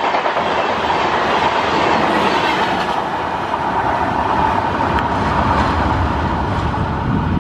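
LHB passenger coaches of an express train running past at about 90 km/h: a loud, steady rush of steel wheels on the rails with a low rumble and a steady high hum through it.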